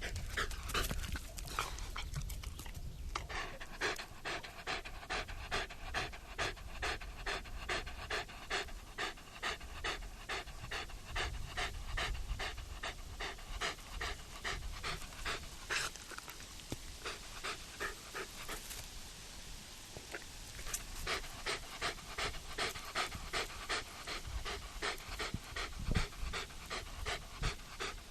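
Puppy panting fast and steadily, about three short breaths a second, with a brief lull partway through.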